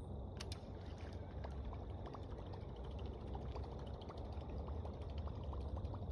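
Faint splashing and gurgling of a Berkley Choppo topwater prop bait being retrieved across calm water, with many small scattered ticks over a low steady rumble.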